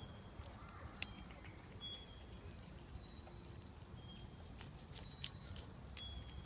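Scottish Fold cat chewing and licking a fresh green leaf: faint, irregular clicks of teeth and tongue on the leaf, the sharpest about a second in and about five seconds in, over a low steady rumble.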